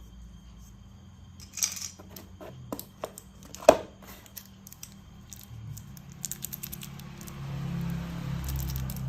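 Toy packaging and plastic toy parts being handled: rustling, a few light clicks, and one sharp plastic click about three and a half seconds in. A low steady hum comes up in the last couple of seconds.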